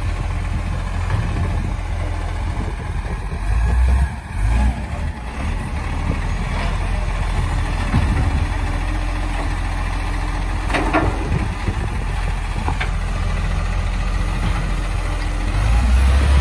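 Dennis side-loader garbage truck's diesel engine running while its automated arm lifts and empties a wheelie bin, with a loud knock about four seconds in. The engine note rises at the very end as the truck moves off.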